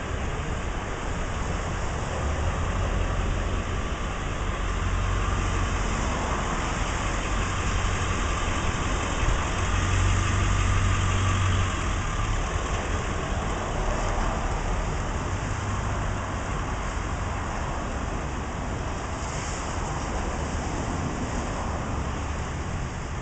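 Steady noise of falling rain, with a low rumble that grows louder about ten seconds in and then eases.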